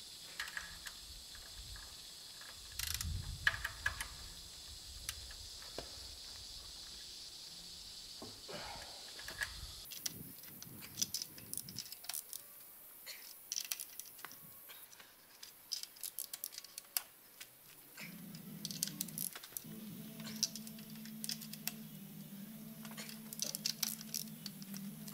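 Hand tools clicking and clinking on the cylinder head bolts of a BMW M52 engine as a wrench turns each bolt a further 90 degrees in the angle stage of head-bolt tightening. A low steady hum comes in late on.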